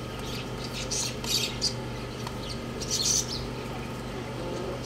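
Two young roosters pecking feed from a steel bowl: clusters of short, sharp pecking clicks and scrapes about a second in and again around three seconds, over a steady low hum.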